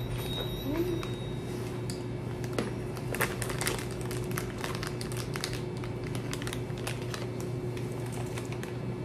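Plastic snack wrapper crinkling in the hand in irregular crackles, busiest over the first several seconds, over a steady low hum.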